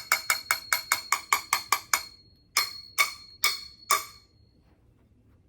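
Rapid, evenly spaced woody ticks with a ringing pitch, about five a second, that slow to four spaced ticks and then stop about four seconds in.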